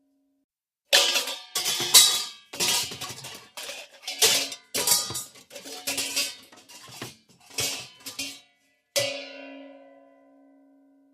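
Cartoon-style clatter of pots and pans: a run of rapid metal crashes and bangs for about seven seconds, then a single clang that rings on and fades away.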